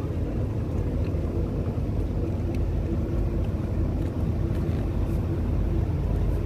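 Motorboat under way: a steady low engine rumble mixed with wind and water noise.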